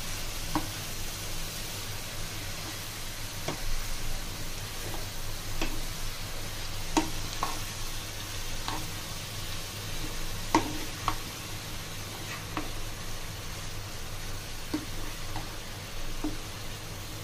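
Food sizzling in a frying pan while a spoon stirs it, knocking and scraping against the pan at irregular moments, over a steady low hum.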